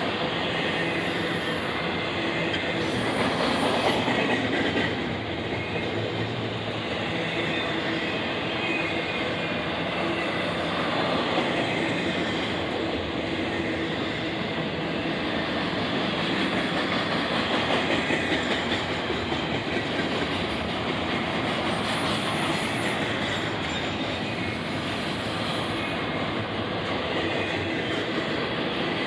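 Union Pacific intermodal freight train rolling past: a steady noise of the cars' wheels on the rails.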